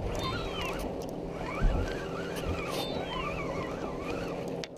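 Spinning reel being wound in on a hooked fish, its gears giving a whine that rises and falls with each turn of the handle. Under it runs a steady engine hum from the boat's motor, and there is one knock about a second and a half in.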